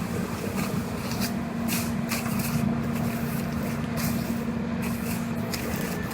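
A small motor running with a steady hum, with short, irregular hissing or scraping strokes over it.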